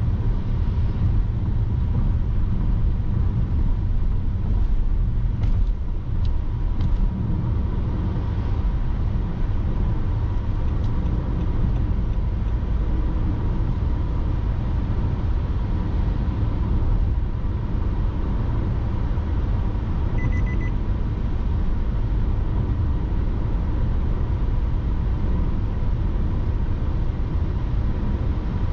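Car on the move: a steady low road and engine rumble picked up by a dashcam, with a faint steady tone underneath. A short beep sounds about twenty seconds in.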